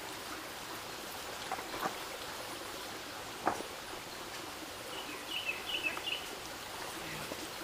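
Outdoor farmyard ambience: a steady hiss, a single knock near the middle, and a small bird chirping a quick run of high notes about five seconds in.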